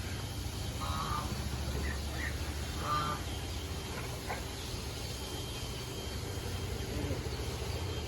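Steady low hum of background noise, with a few short bird chirps about one, two and three seconds in.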